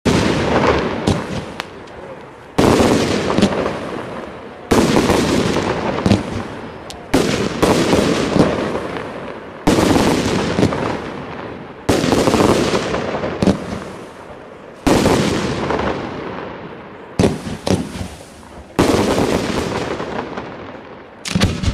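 Aerial fireworks shells bursting: about ten loud bangs a couple of seconds apart, each followed by a long, slowly fading rolling echo, with smaller cracks in between.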